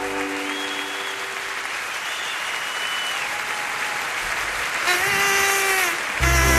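Audience applauding, with a few held notes fading out early on. The band comes in loudly with a heavy bass near the end.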